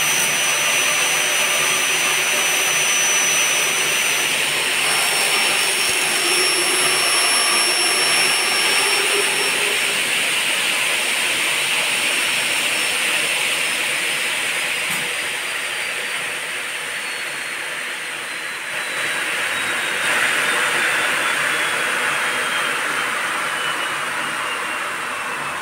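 Elumatec AKS 134 notching saw with its large circular blade running and notching an aluminium profile: a loud, steady hissing machine noise with a high whine. Over the second half the whine slowly falls in pitch.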